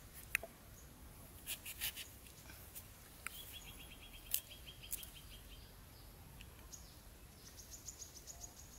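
Faint clicks and taps of a small knife and hands cutting and squeezing a small green citrus fruit. Two short, rapid chirping trills sound in the background, one about a third of the way in and a higher one near the end.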